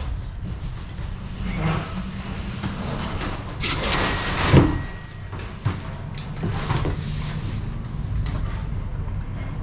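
A large cardboard box being shifted, scraped and torn open inside an enclosed cargo trailer, with rustling of cardboard and packing paper in several short bouts, the loudest about four seconds in, over a steady low rumble.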